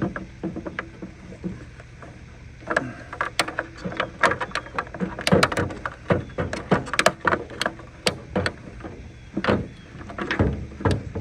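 Irregular plastic clicks and knocks as a stubborn bulb socket is twisted and worked in the back of a Ford F-150 taillight assembly.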